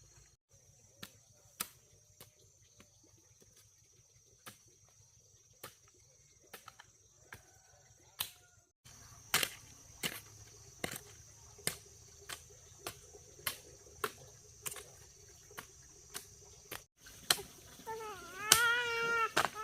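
Evenly spaced knocks, a little under two a second, over a thin steady high tone. Near the end a baby starts to cry, a wavering wail.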